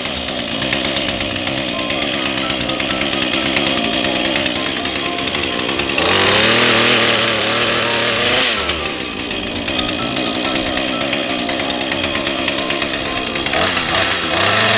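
Two-stroke chainsaw engine running just after a cold start. It is revved up about six seconds in, held for a couple of seconds and let fall back, and is revved up again near the end.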